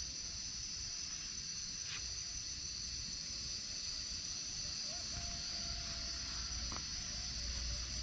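Steady high-pitched chorus of night insects, with a low rumble underneath.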